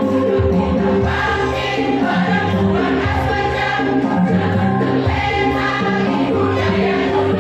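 A women's choir singing a hymn together, holding long notes.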